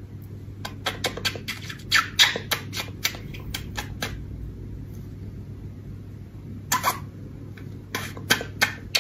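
Repeated short kiss smacks on a cat's head in two clusters, over a steady low hum.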